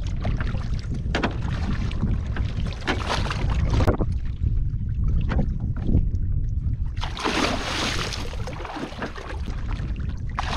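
Wind buffeting the microphone over water slapping against a small wooden boat. A burst of rushing splashing comes about seven seconds in and lasts a second or so.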